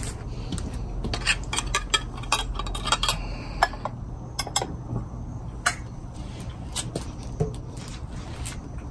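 Irregular clinks and scrapes of a metal spoon against an open tin can and a ceramic food bowl as wet cat food is spooned out, with a cat eating from the bowl.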